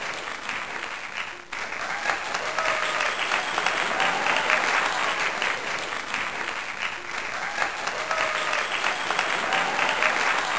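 A group of people applauding, with a brief dip in the clapping about a second and a half in.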